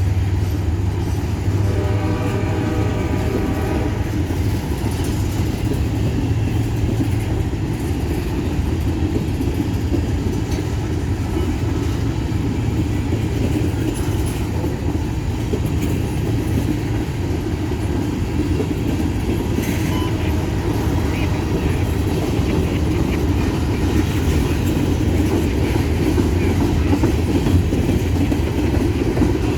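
Freight train departing, led by diesel locomotives, with the engines' steady low rumble throughout. The horn sounds once early on for about two and a half seconds, then the rail cars roll steadily along the track.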